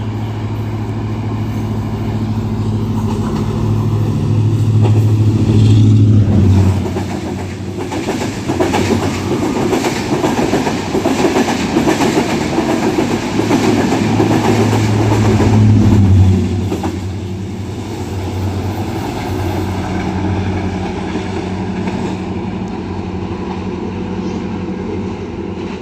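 A train passing close by: a low engine drone grows louder and drops in pitch as it goes past about six seconds in, followed by the rumble and clicking of wheels over the rails. A second engine drone peaks and drops in pitch about sixteen seconds in, then the train runs on more quietly.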